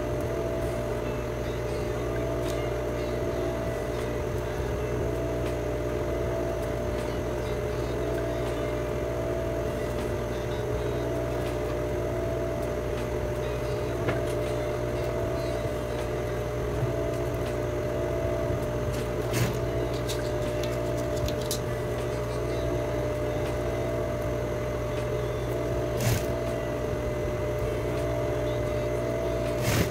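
Electric sewing machine running steadily, stitching elastic onto a child's sleeve, with a few sharp clicks along the way.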